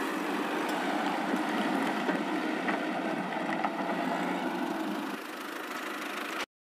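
A tractor engine running steadily, dropping slightly in level about five seconds in and cutting off abruptly near the end.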